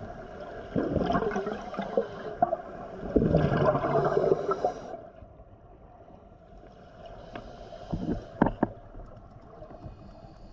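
Scuba diver's exhaled bubbles from a regulator, heard underwater: two gurgling bursts of about a second and a half each, then a steady low hiss with a few sharp clicks near the end.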